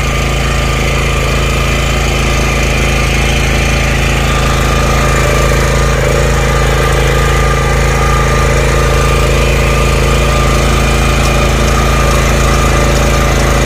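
Honda 8 HP single-cylinder petrol engine of a BCS 730 walk-behind power tiller running steadily at working speed while the machine tills the soil.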